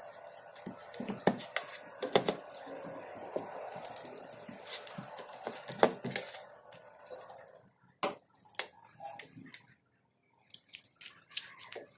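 Rustling of a dried nori sheet as it is pressed and rubbed by hand onto a fish fillet on an enamel plate, with many light clicks and taps against the plate. The rustling fades about seven seconds in, and after a brief pause, scissors start snipping the sheet near the end.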